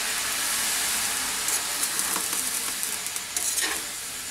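Water poured into a hot wok of oats poha with vegetables, sizzling steadily and slowly dying down, with a spatula scraping and stirring through the oats from about a third of the way in.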